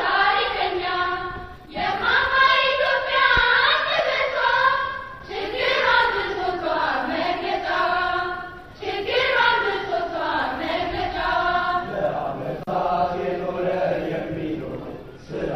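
A youth choir singing a tribute song together, in phrases of about three to four seconds with short breaks between them.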